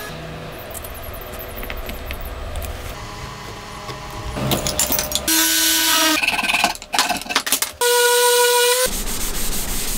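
Rubbing and handling of glued wooden pieces, then from about halfway a series of short, loud power-tool bursts with a motor whine. The last and loudest burst is a random orbital sander running on a wooden board.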